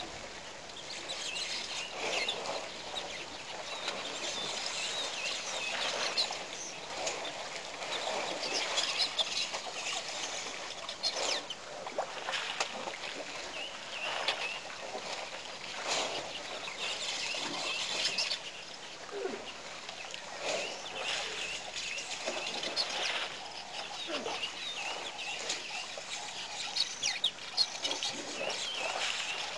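Wild birds calling around a waterhole: a dense, continuous chatter of short high chirps, with now and then a louder, harsher call.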